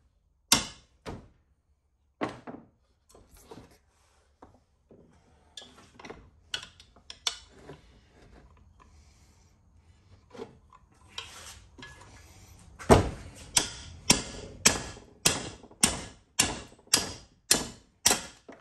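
Hammer striking a socket extension to drive seized stock bushings out of a CFMOTO A-arm. A few separate blows and lighter taps come first, then a steady run of heavy blows at nearly two a second over the last six seconds.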